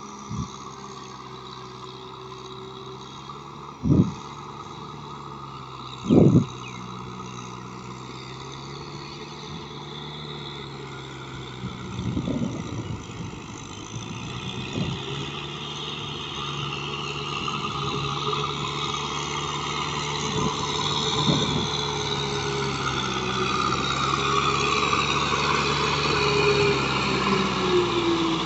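Kubota M6040SU tractor's four-cylinder diesel engine running steadily under load as its rear rotary tiller churns flooded paddy mud. The sound grows louder as the tractor comes closer, adding splashing and a wavering whine near the end. A few short sharp thumps fall in the first half.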